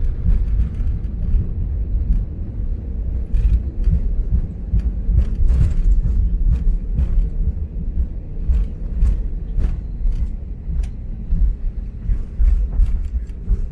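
Cabin rumble of an Airbus A320neo rolling on the ground just after landing, a steady low rumble with frequent short knocks and rattles from the cabin.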